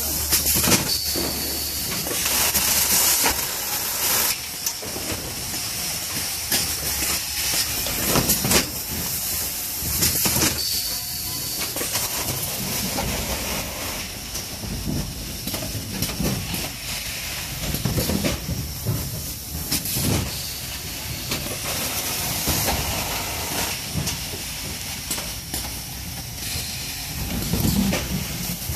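Combi 2EZXXL carton erector running, its pneumatic cylinders and suction cups cycling as corrugated cartons are erected. Repeated hisses of compressed air run over a steady hiss, with sharp mechanical clacks.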